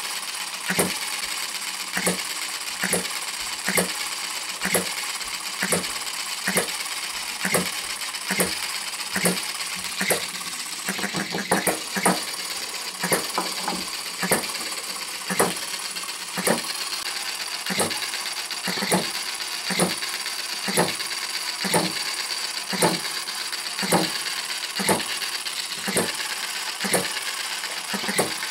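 Retrol HM-01 7cc four-stroke horizontal hit-and-miss model engine running, with sharp regular beats about once a second over a steady light mechanical clatter.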